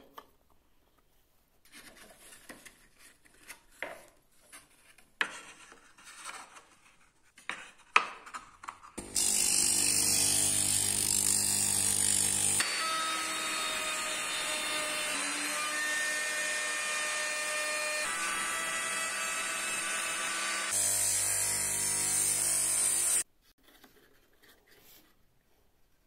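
Table-mounted wood router switched on about nine seconds in and running with a steady high whine. From about 12 to 21 seconds it routs a strip of wood fed along the fence, its sound slightly lower and changing in tone under the cut. It stops abruptly near the end. Before it starts, wooden pieces knock and click as they are set out on the table.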